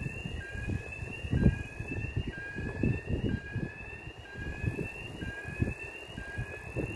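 A repeating electronic warning tone: a rising two-pitch chirp about once a second, with wind buffeting the microphone underneath.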